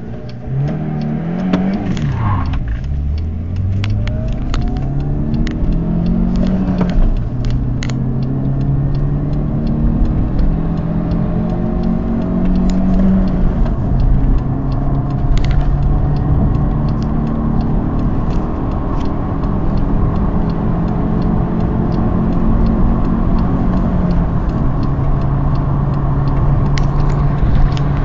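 SEAT Ibiza 1.0-litre 45 bhp petrol engine under full-throttle acceleration, heard from inside the cabin. The engine note climbs in pitch through each gear and drops sharply at four upshifts; each climb is slower than the last.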